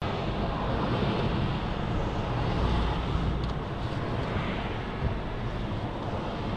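Steady road and engine noise of a moving car, heard from inside the cabin: an even, low rumble.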